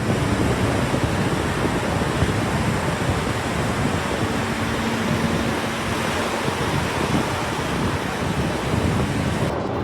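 Steady, loud rushing noise with no clear rhythm, plus a faint steady hum for a couple of seconds in the middle.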